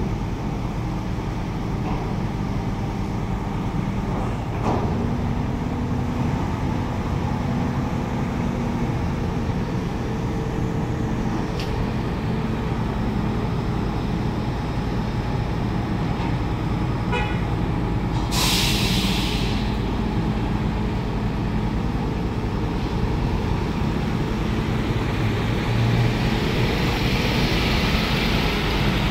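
Heavy diesel engine of a truck crane running steadily as it hoists a shipping container, with a short, sharp hiss of released air about two-thirds of the way through.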